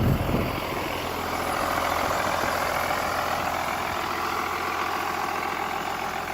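Blue Bird bus's 5.9-litre Cummins diesel idling steadily under an even hiss, with a brief clunk right at the start.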